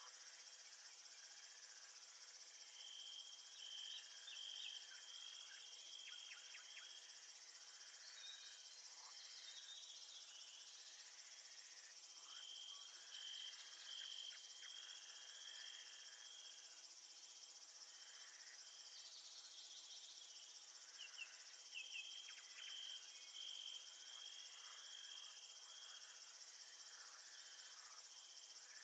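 Faint nature ambience of crickets and other insects. A steady high hiss of insect noise runs throughout, while a cricket's trill pulses on and off in stretches of a few seconds, with a few short chirps scattered in.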